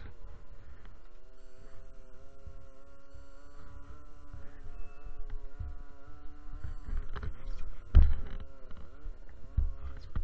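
Small racing boat's engine running on the water, its pitch rising and falling with the throttle, over a low buffeting rumble on the onboard microphone. A loud thump comes about eight seconds in.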